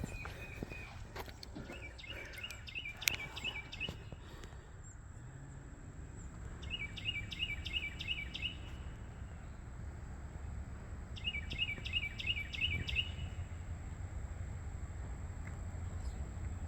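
A songbird singing three bouts of rapid repeated notes, a few seconds apart, over steady outdoor background noise. Footsteps in the first few seconds, and a faint steady high tone from about five seconds in.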